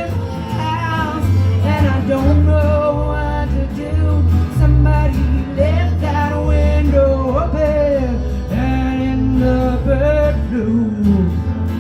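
A song being performed: a singer's voice holding long, wavering notes over guitar and a bass line that changes note about once a second.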